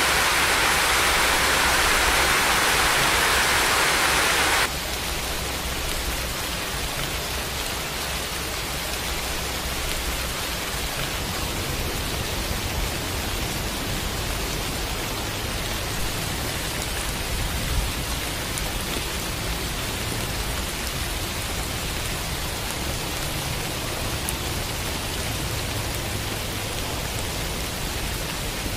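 Steady rain. A louder, hissier downpour cuts off abruptly about five seconds in and gives way to softer, even rainfall.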